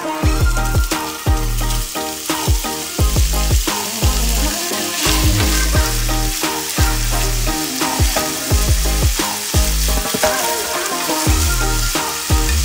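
Diced pancetta sizzling in hot oil in a frying pan, stirred around with a spatula, over background music with a repeating bass line.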